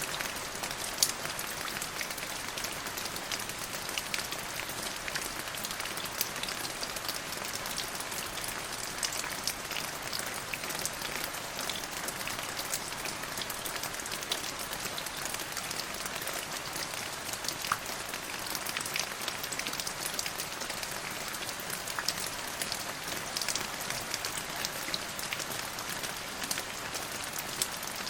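Steady rainfall, an even hiss of rain with many individual drops ticking sharply on a surface throughout.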